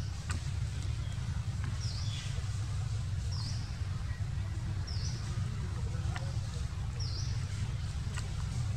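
A short high chirp repeating about every one and a half seconds, over a steady low rumble.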